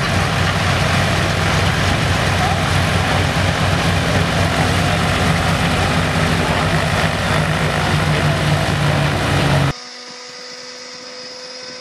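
Antonov An-2's nine-cylinder Shvetsov ASh-62 radial engine running with its propeller turning just after a cold start, a loud low pulsing beat. Near the end it cuts off suddenly to a much quieter steady hum.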